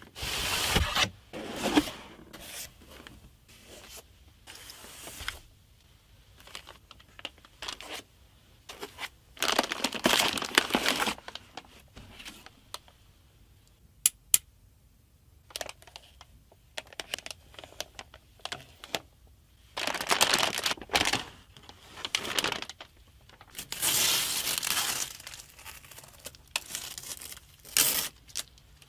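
Packaging crinkling and tearing as a graphics card is unboxed: irregular bursts of rustling, each a second or two long, with quieter gaps and a couple of sharp clicks about midway.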